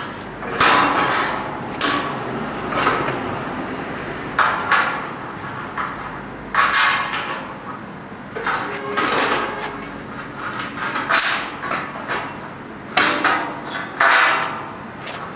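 Irregular knocks and bangs on a cooling tower's round fan shroud as it is handled and fitted, roughly one or two a second, each with a short metallic ring.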